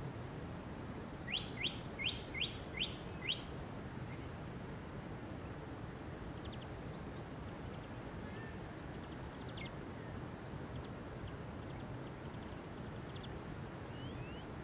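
Birdsong from a nature-sounds background: a bird gives a quick series of six rising chirps starting about a second in, then faint scattered chirps follow, over a steady low outdoor hiss.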